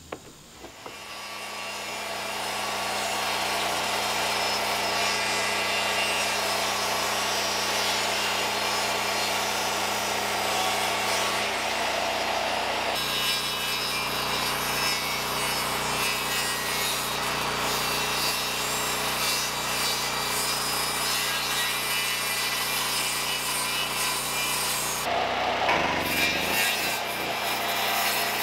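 Corded circular saw running and cutting through a long rough-sawn wooden board: a steady motor whine with cutting noise. There is a short break about 25 seconds in, and then it cuts on.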